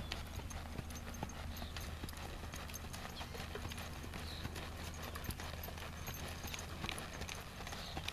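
Quarter horse gelding's hooves striking a dirt track at a trot: an even run of light hoofbeats.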